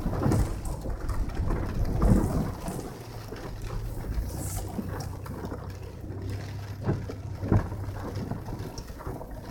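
Toyota 4Runner engine running with a steady low hum, heard from inside the cabin, under a haze of rain and water noise, with a few dull thumps about two seconds in and near the end.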